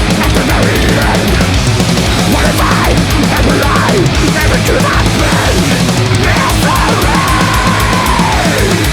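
Loud heavy-metal background music with a driving beat and a lead line that holds one long note and slides down near the end.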